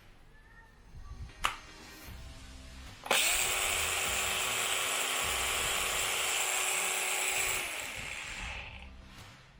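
A click about a second and a half in. Then a Bosch GWS 18V-10 18-volt cordless brushless angle grinder is switched on at about three seconds and runs at a steady pitch for four to five seconds. It is switched off and winds down over about a second and a half.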